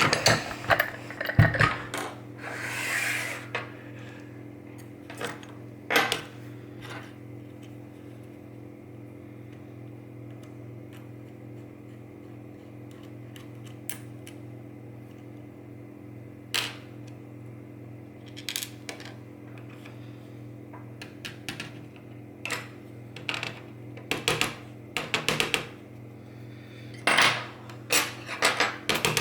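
Small metal lock parts clicking and tapping at irregular intervals as a Mul-T-Lock Interactive cylinder is disassembled, with a brief handling rustle a few seconds in. A steady low hum runs underneath.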